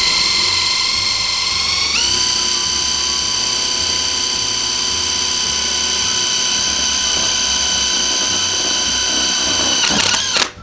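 Power driver running steadily, driving a reamer-winged self-drilling screw through wood and into a steel square tube. Its whine rises in pitch at the start, steps up again about two seconds in, then stops abruptly near the end.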